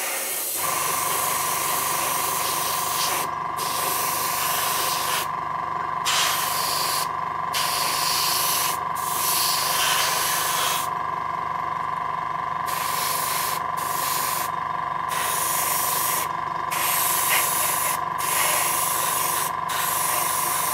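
A cheap AS186-type airbrush compressor cuts in about half a second in and runs with a steady hum over a fast pulsing. Over it the airbrush hisses in repeated spurts, stopping and starting many times as the trigger is pulled and released while spraying green paint onto a plastic tank hull.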